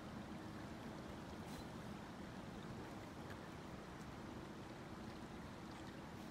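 Steady faint rush of flowing stream water, with a few faint ticks.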